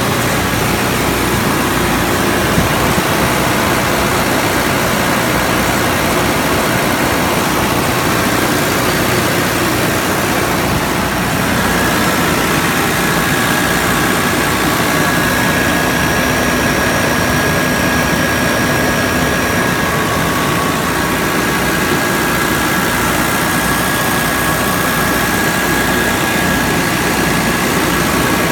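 Trielectron 20-ton aircraft ground air-conditioning unit running steadily with both refrigeration compressors on, a loud even machine noise; a faint high whine comes in about halfway through.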